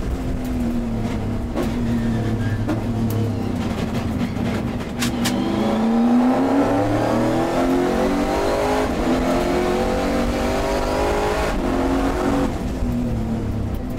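Race car engine heard from inside the cockpit at high revs, dropping in pitch under hard braking with downshifts about four to five seconds in, then rising steadily as the car accelerates through the gears, with an upshift near the end.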